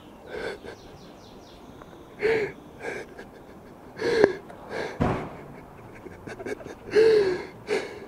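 A young man sobbing, with short catching gasps and cries coming in irregular bursts.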